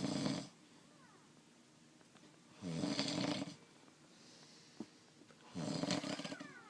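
A sleeping man snoring: rasping snores about every three seconds, each about a second long. One ends just after the start and two more follow.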